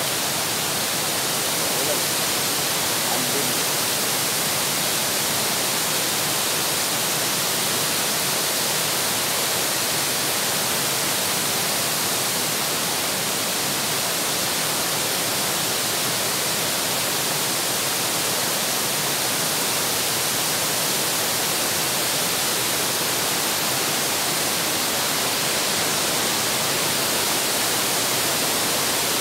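Waterfall's steady rushing roar of falling water, an even hiss that holds unchanged throughout.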